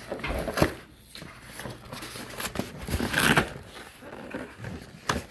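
Cardboard toy packaging being handled and torn open: irregular rustling, scraping and crinkling, with a sharp knock about half a second in and a louder stretch of ripping around three seconds in.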